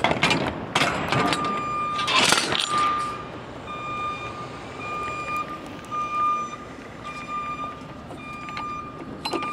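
A truck's reversing alarm beeping at one steady pitch, about once a second, over a running truck. A short loud hiss of air comes about two seconds in.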